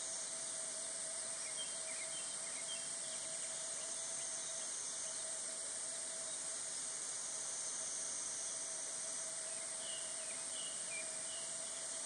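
Steady high-pitched insect drone, with faint short bird chirps a few times about a second in and again near the end.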